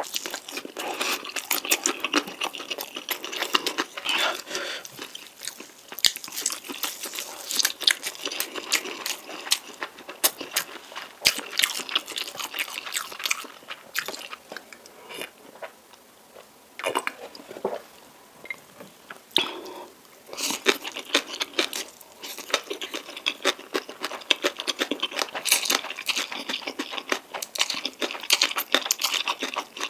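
Close-miked eating of spicy noodles: wet chewing and mouth clicks, dense and crackly, with a quieter lull around the middle.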